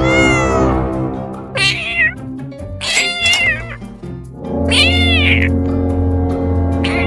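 A cat meowing, several short high-pitched meows in turn, over background music with sustained notes.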